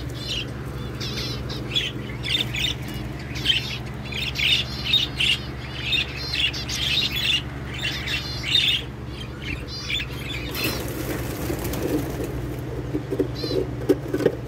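Budgerigars in a cage chattering with rapid warbling chirps, which die down about two-thirds of the way through into soft rustling and light knocks, with a few more chirps near the end.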